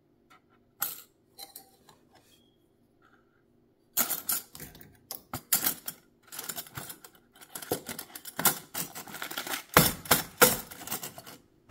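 Small metal sewing-machine attachments clicking and clinking as they are handled and packed into their box: a few light clicks at first, then a rapid run of clinks and rattles from about four seconds in.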